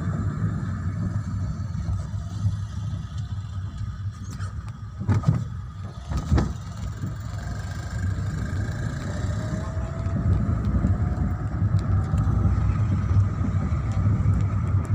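Steady low road and engine rumble inside a moving car's cabin, with two sharp thumps about a second apart near the middle.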